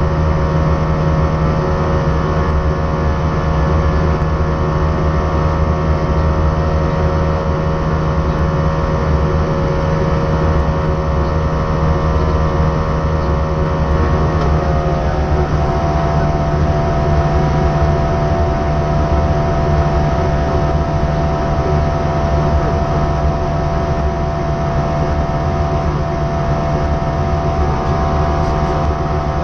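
Airbus A320-232 flight deck during the climb after takeoff: a loud, steady drone of the engines and the airflow around the cockpit, with several whining engine tones that drop slightly in pitch about halfway through.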